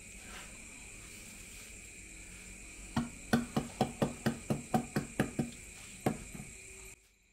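A quick run of about ten sharp knocks, roughly four a second, beginning about three seconds in, with one more a moment later, over a steady high drone of night insects.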